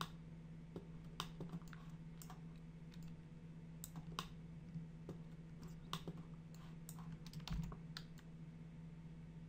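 Faint, irregular clicks of a computer keyboard and mouse as someone works in 3D modelling software, over a steady low hum.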